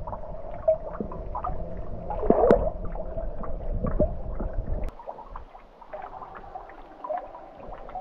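Water dripping and trickling into a cave pool, many small drips over a steady watery wash. A low rumble underneath drops away about five seconds in.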